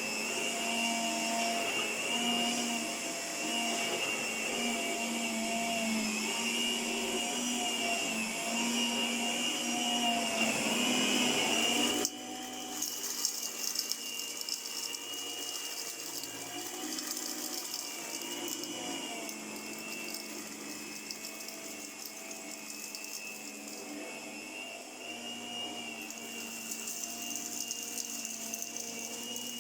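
A 1978 Princess electric carpet sweeper running: its small motor and rotating brush make a steady whine whose pitch wavers slightly. About twelve seconds in the sound drops abruptly and then carries on quieter.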